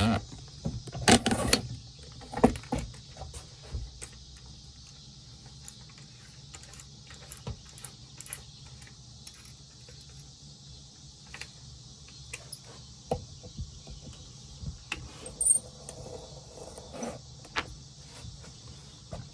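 Scattered knocks and metallic clinks of workshop tools and wood pieces being handled, loudest and busiest in the first couple of seconds, over a steady high chirring of crickets.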